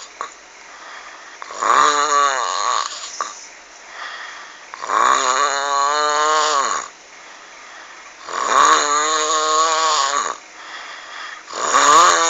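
Loud, rasping snoring: four snores about three and a half seconds apart, each under two seconds long and dropping in pitch as it ends, with quieter breathing between them.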